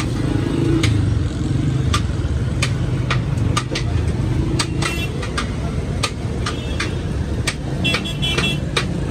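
Steady traffic rumble from a busy road, with a scattering of sharp clicks and clinks and a brief high ringing tone near the end.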